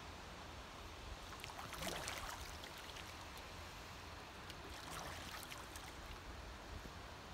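A young mute swan splashing in pond water, two splashes about 2 and 5 seconds in with light dripping between, faint against a low background hiss.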